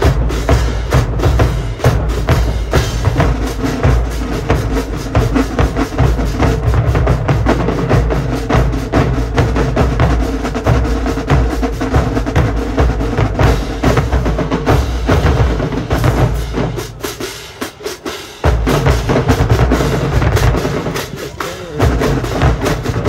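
Marching drumline of snares, tenors, bass drums and crash cymbals playing a fast, dense cadence. About three-quarters of the way through, the bass drops out and the playing thins briefly, then the full line comes back in.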